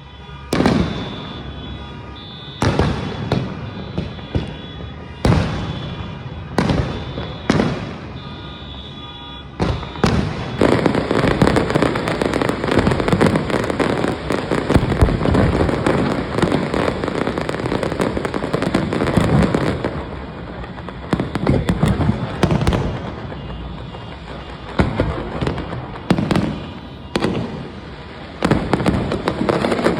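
Fireworks show. Single booms go off about once a second, then a dense barrage of rapid bangs and crackle lasts about ten seconds, then single bursts return.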